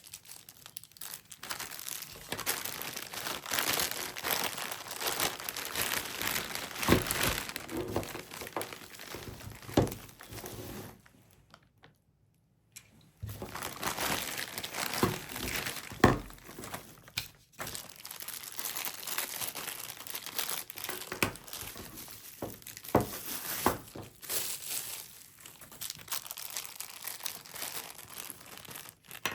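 Packaging being unwrapped and handled: continuous crinkling and rustling with scattered small clicks and knocks, stopping briefly about halfway through.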